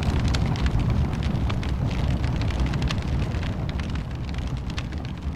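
Crackling fire sound effect: a steady low rumble scattered with many small irregular snaps and crackles, slowly fading out.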